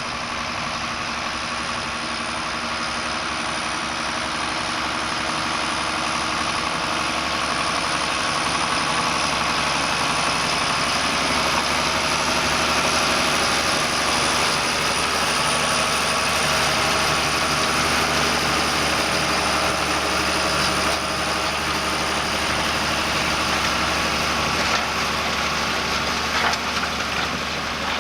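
John Deere 6930 tractor's six-cylinder diesel engine running steadily under load while pulling a four-furrow plough, with a thin high whistle over the engine sound. It grows gradually louder over the first half and eases slightly near the end.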